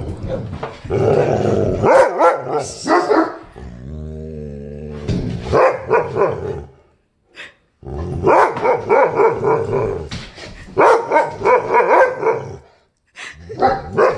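Poodle barking in rapid runs of high barks, agitated at two large dogs play-fighting, with a low growl about four seconds in and a brief pause near seven seconds.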